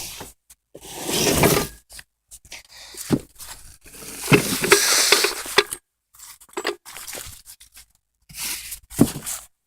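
Rough scraping and crunching in several stretches, with a couple of sharp knocks, from tools and a wooden board being dragged and moved about on the ground under a van.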